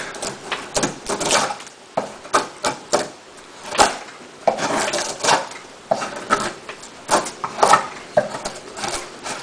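Sharp multitool knife blade cutting into wood in short, irregular strokes, each a brief crack or scrape.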